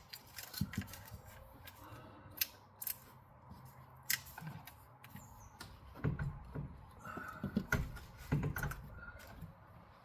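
A rubber garage door bottom seal being dragged by hand, without lubricant, through its aluminum retainer track: scattered scrapes and clicks, a brief squeak, and a few dull thumps in the second half.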